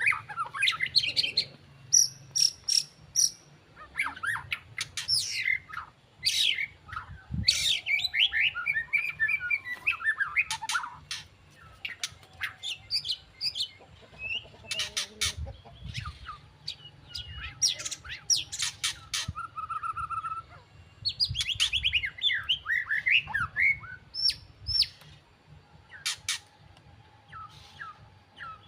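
White-rumped shama singing in bouts: quick varied whistled phrases and fast runs of notes, mixed with sharp clicks.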